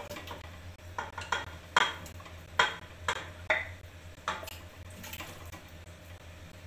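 Raw beef chunks being stirred in a metal pressure cooker with a wooden spoon: a string of about ten irregular knocks and clinks as the spoon and meat strike the pot, over a steady low hum.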